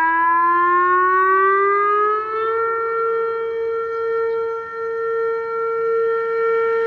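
ATI HPSS-16 electronic siren sounding its evacuation tone. The tone comes on abruptly, rises in pitch for about two and a half seconds, then holds steady.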